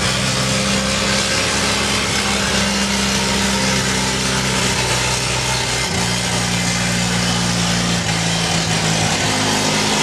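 Pulling tractor's engine idling loud and steady while being warmed up, its tone briefly shifting about six seconds in.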